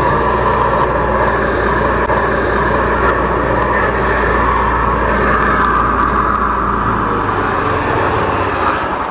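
13-horsepower engine-driven high-pressure sewer jetter running steadily under load, its engine note mixed with the hiss of the pump and jet. The sound drops away sharply near the end.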